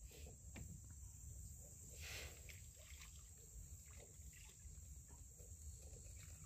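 Near silence: faint outdoor background, a steady high hiss over a low rumble, with a few faint ticks and a soft swell of noise about two seconds in.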